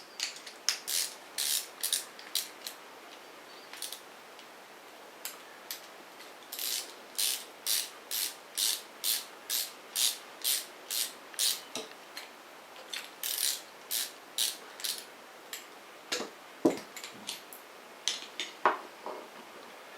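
A hand tool turning the clamp bolt to take the clamp off a Campagnolo brake lever makes short, sharp ratcheting clicks. They come in runs of about two strokes a second with pauses between the runs, and a couple of deeper knocks come near the end.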